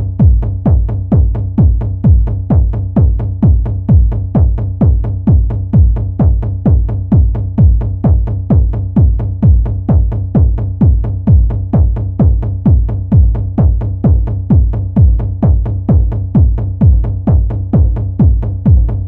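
Acid techno track built on a strong, steady four-on-the-floor kick drum, a little over two beats a second, with drum-machine percussion.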